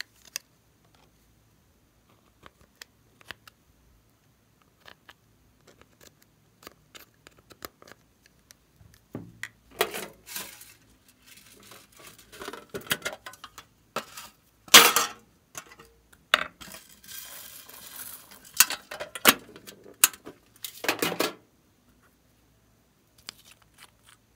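Makeup containers being handled: light plastic clicks and taps at first, then louder scraping and clattering with sharp knocks from a metal tin, loudest about halfway through, ending a few seconds before the close.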